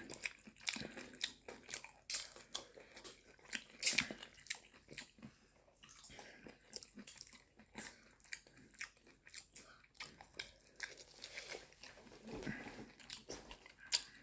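Close-miked eating: a person biting and chewing fried dumplings, with many small irregular crunches.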